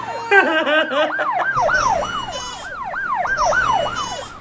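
Yelp-type emergency siren wailing up and down quickly, about three sweeps a second. A second wavering tone cuts in briefly near the start.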